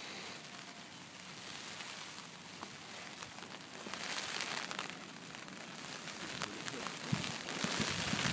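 Steady hiss of light rain and wind on the microphone, with scattered faint crackles and a few low buffeting thumps near the end.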